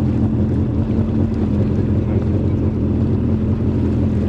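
Jet ski engine running steadily at cruising speed, a constant low hum, with wind rushing over the microphone.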